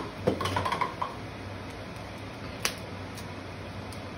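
Short clicks and taps from gloved hands handling king crab legs: a quick run of small clicks in the first second, then a few single clicks, over a steady low room hum.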